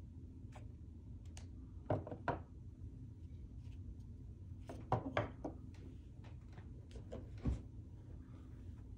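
A few light clicks and knocks as a pair of LOOK Blade road pedals are picked up off a digital scale and set down on a desk, over a low steady hum.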